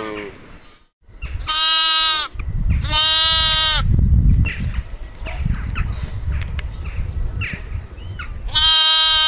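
A lamb bleating three times, high-pitched calls for its mother: two close together about a second and a half in, one more near the end. A low rumbling noise runs between the second and third calls.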